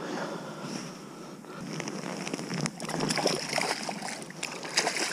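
Water splashing and sloshing as a large zander is let go into the river and swims off, with a run of irregular splashes in the second half.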